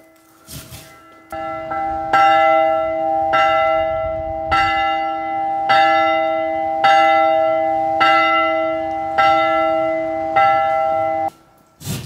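Church bell swung by a bell rope, its clapper striking about nine times, a little over a second apart, each stroke ringing on into the next. The ringing cuts off suddenly near the end.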